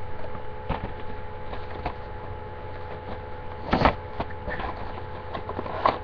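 A cardboard gift box tied with a ribbon being handled close to a webcam microphone: scattered light rustles and taps, with one louder brush about four seconds in, over a steady electrical hum.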